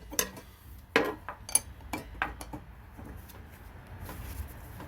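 Steel blade-change wrenches clinking against the table saw's arbor nut and blade as they are set and worked to break the nut loose: a handful of sharp metal clicks in the first couple of seconds, then quieter.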